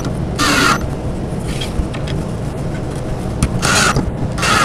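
Cordless drill driving long screws down through a wooden end panel into the bed rails. The motor runs steadily, with four short, louder spells as the screws bite into the wood.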